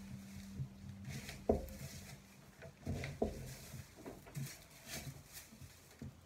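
Faint handling sounds of twine being wrapped around a bundle of broomcorn: light rustling and ticking, with a few soft knocks about a second and a half and three seconds in.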